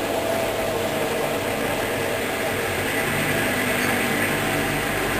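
Hoover DYN 10124 DP washing machine in its final high-speed spin: steady motor whine and drum rush with no change in speed.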